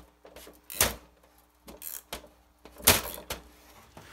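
Steel wrench and sockets clanking against a Jaguar steering rack as the nut of a bolt-and-socket press is turned to push a bushing sleeve out of its mount. There are a few sharp metallic knocks, the loudest about three seconds in.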